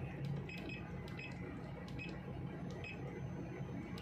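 Repeated key presses on a Furuno GP-31 GPS navigator's arrow pad, short clicks with brief beeps, a few each second, as digits are stepped through, over a steady low hum.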